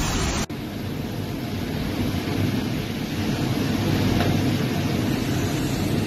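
Squall wind and heavy rain: a steady rush of noise, heaviest in the low range where gusts buffet the microphone. A sharp break about half a second in, where one storm clip gives way to another.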